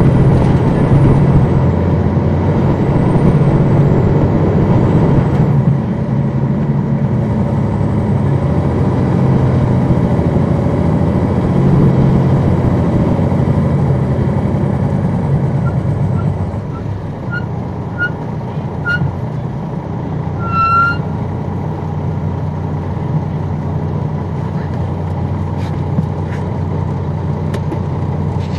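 The Detroit Diesel Series 60 diesel of a 2002 MCI D4000 coach bus, heard from inside the bus, running under way with its pitch and level shifting several times. It settles lower and quieter about two-thirds of the way through. Around then a row of five short high beeps sounds, followed by one longer beep.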